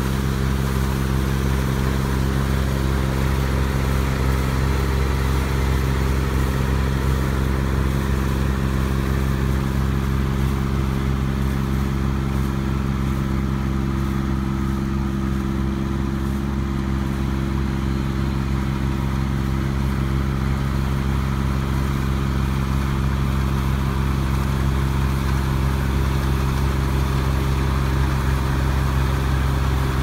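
Small tracked rice combine harvester running steadily as it cuts and threshes standing rice: a constant engine hum with the even clatter of the cutting and threshing mechanism over it.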